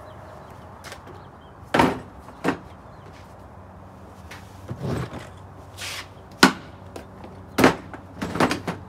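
RIDGID modular plastic tool boxes being set down and stacked on a wooden slide-out, and latched together as they lock into place: a string of about seven sharp knocks and clacks, the loudest a little past six and a half seconds in.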